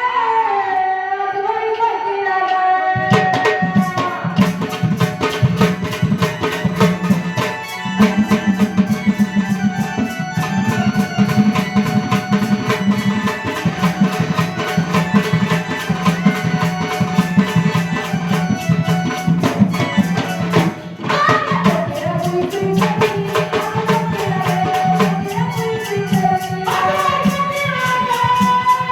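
A woman singing a Marathi devotional Ramayana story-song, accompanied by a tabla-like hand drum playing a fast rhythm and a sustained melodic instrument. The voice drops out about three seconds in for an instrumental passage with the drums at the front. It returns about twenty-one seconds in.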